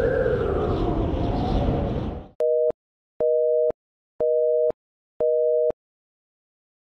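Telephone busy signal: four half-second beeps of a steady two-note tone, one per second. It is preceded by a loud rushing noise with wavering tones that cuts off suddenly.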